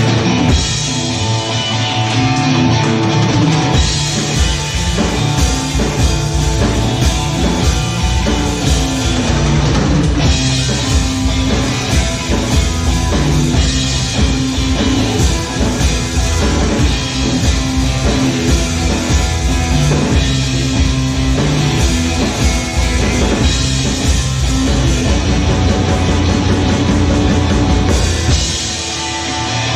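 Psychedelic rock band playing: drum kit and electric guitar over a full band. The drums and bass drop out briefly near the end.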